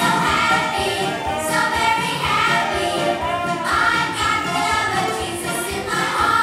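A song sung by a group of voices over backing music, continuing without a break.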